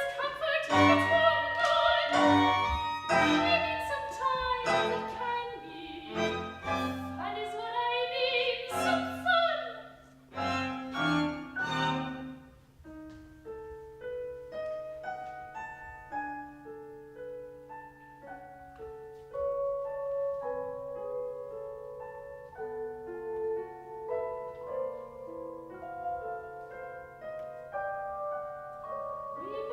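Soprano singing an opera aria over instrumental accompaniment. About twelve seconds in the voice stops and the accompaniment carries on alone, quieter, in held notes.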